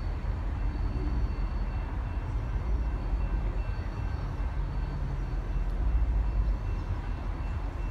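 Steady low rumble of a diesel locomotive running some way off down the track, with a few faint steady whining tones above it.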